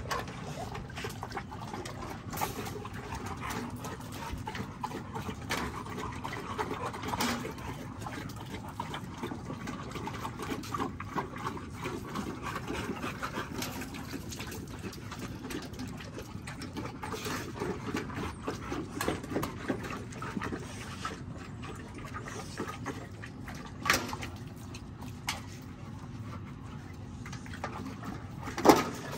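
XL bully dogs lapping water from a galvanized metal bucket, a steady wet lapping with many small splashy clicks. Two sharper knocks stand out, one a few seconds before the end and a louder one just before it ends.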